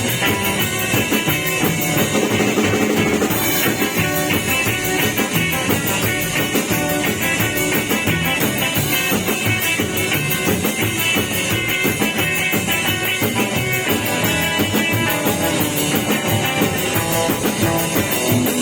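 A rock band playing: electric guitar over a steady drum-kit beat with cymbals keeping time.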